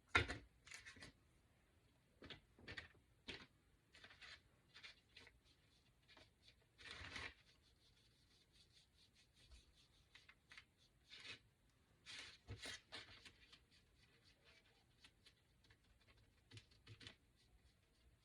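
Quiet scattered taps, clicks and short scrapes of small craft items being handled on a table while painting wooden cutouts, with a sharper knock right at the start and brief rustling scrapes twice more.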